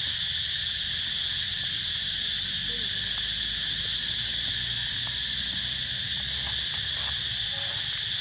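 Steady, unbroken drone of a forest insect chorus, several shrill tones held together without a pause. A few faint crackles of dry leaves underfoot come through in the middle.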